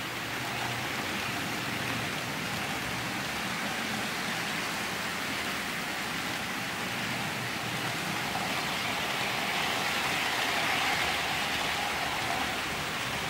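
OO gauge model trains running on the layout: a steady rolling rumble and whirr of small wheels on rails and the motor. It grows slightly louder about ten seconds in as the Hornby Eurostar comes through.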